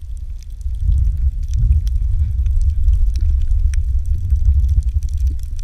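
Muffled underwater rumble of water moving around a submerged camera, with scattered faint clicks and crackles.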